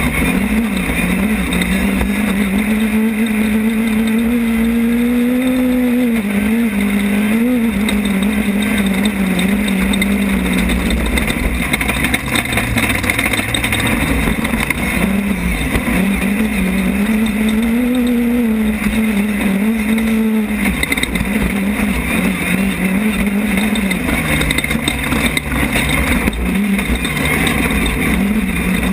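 Onboard sound of a Class 10 off-road desert race car, its engine running hard. The engine note rises and falls with the throttle, dropping lower about halfway through, over a constant rushing rattle of chassis, wind and terrain.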